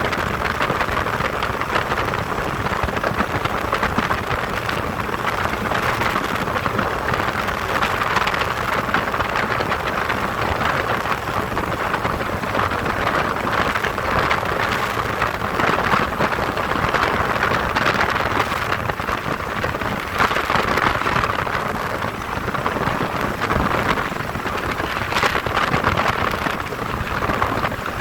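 Ultralight aircraft in flight: a steady rushing noise of wind and engine.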